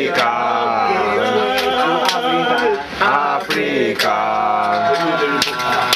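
Male voices singing a chant-like song, over sharp percussive hits that come every second or so.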